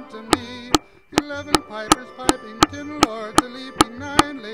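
Music with a steady clicking beat, about two and a half clicks a second, under a wavering, pitched melody.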